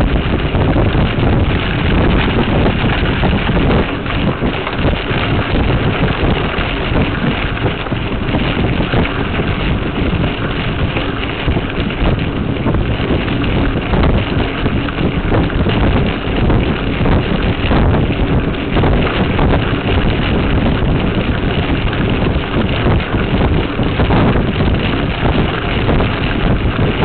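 Loud wind noise buffeting the microphone of a rear bike-mounted Veho Muvi action camera during a mountain-bike ride on a dirt trail, with constant knocks and rattles as the mount jolts over the bumps.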